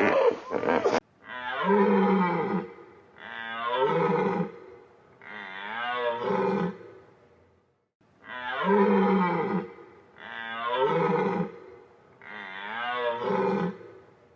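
Big cat roaring: three long, rough roars, a short pause, then three more in the same pattern. A different rough sound cuts off about a second in.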